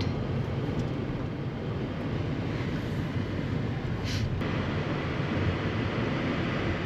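A moving car's steady road and engine rumble while driving, with a brief hiss about four seconds in.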